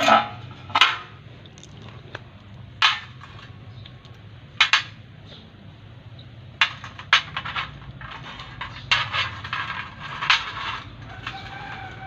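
Steel parts being handled on a concrete floor: a sheet-steel sidecar door panel and loose steel hinge tubes knock and clink, about a dozen separate sharp clanks with brief ringing, spread out a second or two apart and bunched together near the end.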